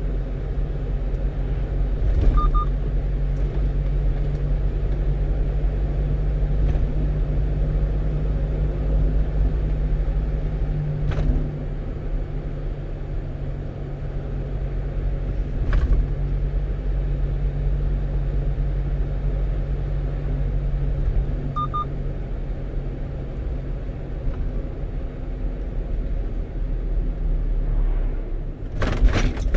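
Steady engine drone and road rumble heard inside the cab of a 1-ton truck on the move, with a few brief knocks and a faint short double beep twice.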